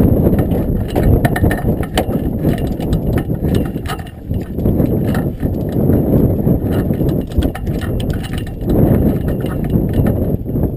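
Wind rumbling and buffeting on the microphone of a small open boat, with water slapping the hull and sharp clicks scattered throughout.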